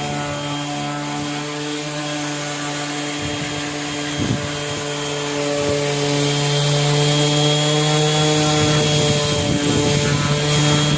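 Electric buffing machine running with its wheel rubbing on the side of a wooden cricket bat: a steady motor hum with a high rubbing hiss, growing a little louder about halfway through.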